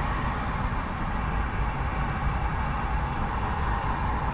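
Heavy urban road traffic heard close to the road: a steady, even rumble of passing vehicles, with no single pass-by standing out.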